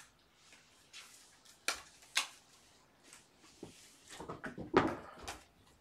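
Handling noise: a few single sharp clicks in the first seconds, then a cluster of knocks and rustling about four to five seconds in, the loudest of them near the end.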